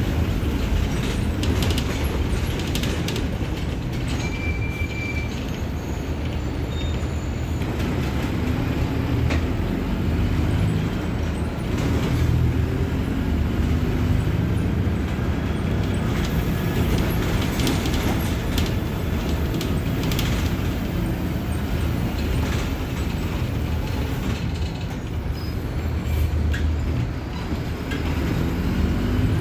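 Mercedes-Benz OF-1721 BlueTec 5 bus diesel engine running on the move, a steady low rumble whose pitch rises and falls several times as the revs change, with scattered clicks and rattles.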